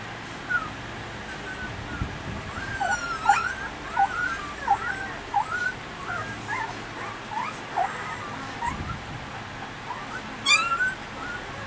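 Newborn Gampr puppies squeaking and whimpering while they jostle to nurse: a string of short, high squeaks, some rising and some falling, thickest in the middle, with one louder squeal near the end.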